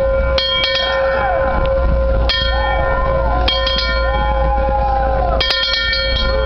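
A large metal bell rung repeatedly, struck every second or two and sometimes twice or three times in quick succession. Its tone rings on without dying away between strikes.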